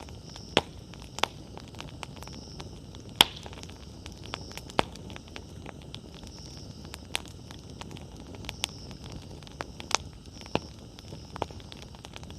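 Wood campfire burning, with irregular sharp crackles and pops over a low steady hiss; the loudest pop comes about three seconds in.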